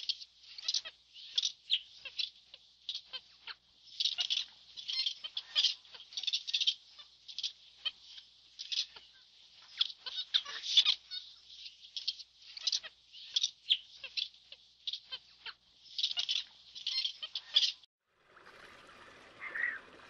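Monkey chattering: rapid, high-pitched squeaky calls in bursts with short pauses. They break off abruptly near the end, where a softer, lower sound with a couple of calls begins.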